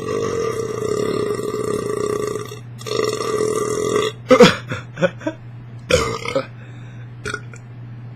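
A man's long, loud burp, brought up by gas from Diet Coke chugged fast. It holds a steady pitch for a few seconds, breaks briefly, then carries on for about another second, and a few short sharp sounds follow.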